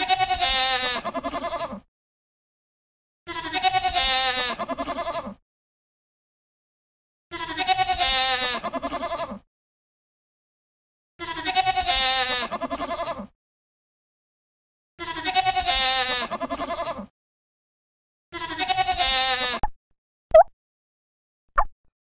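A goat bleating six times, each call about two seconds long with a quavering, wavering pitch, separated by silent gaps; near the end come two very short high blips.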